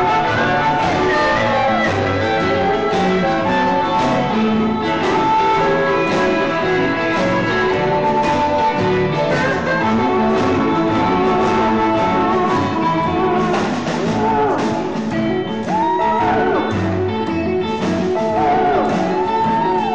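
Live rockabilly band playing, with electric guitars and a slapped-style upright double bass behind a steady beat, and a singer's voice coming in toward the end.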